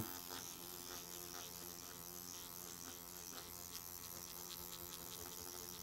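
Electric microneedling pen buzzing faintly with a steady low hum as it is run over the skin of the neck.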